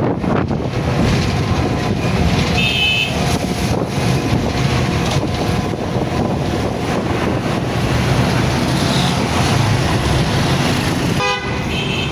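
Busy street traffic and crowd hubbub, with short vehicle horn toots about three seconds in and again near the end.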